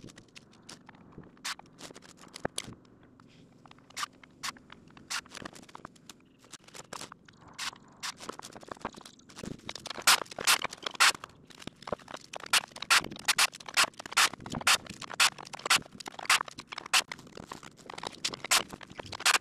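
Pressure-treated lumber being handled on sawhorses: a string of sharp wooden clicks and knocks, sparse at first and coming thicker and louder from about halfway through.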